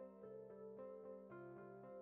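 Quiet instrumental background music, gentle notes changing every half second or so over a held low tone.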